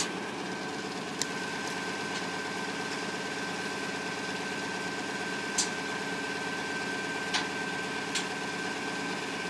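An engine idling steadily, with a constant high whine over it and a few sharp clicks.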